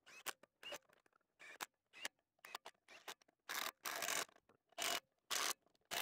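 Hand socket ratchet clicking on its back-swings while running lug nuts onto a truck's front wheel. It starts as short, scattered bursts, then from about three and a half seconds settles into longer, regular ratcheting strokes about two a second.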